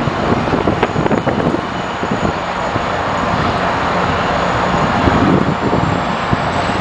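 Steady vehicle rumble and hiss, an even wash of engine and traffic noise, with some wind buffeting the microphone.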